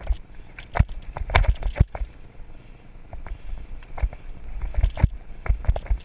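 Mountain bike rolling fast over a bumpy dirt singletrack: irregular sharp knocks and rattles from the bike over a continuous low rumble.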